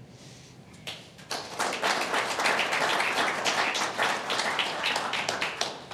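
Audience applauding, a few first claps about a second in, then full clapping that stops just before the end.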